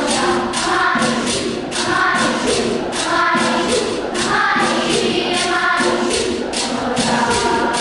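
Children's choir singing in several parts, with a quick steady ticking beat running through the singing.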